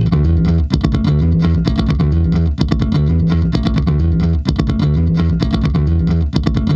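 Background music: a rock track with electric guitar and a repeating bass line over a steady beat.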